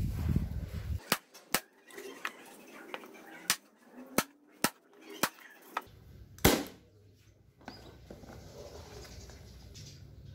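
Corded electric brad nailer firing brads into a pallet-wood frame: a string of sharp snaps, about nine over five seconds, the last and loudest about six seconds in.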